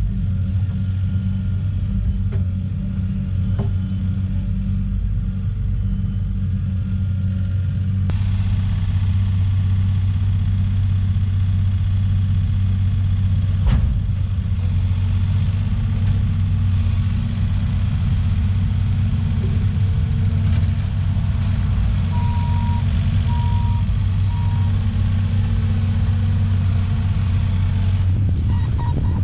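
Diesel engine of heavy compact equipment running steadily under work, with a single knock about halfway and a backup alarm beeping three times late on.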